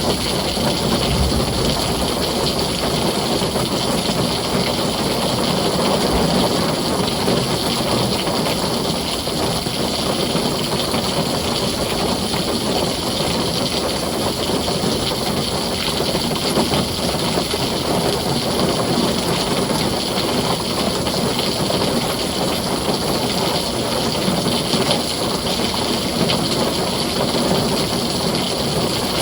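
Heavy rain falling steadily on a tin roof, an even, unbroken hiss and patter.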